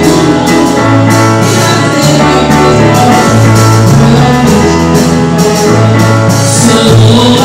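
Church band music: deep bass notes changing about once a second under guitar, with drums keeping a steady beat.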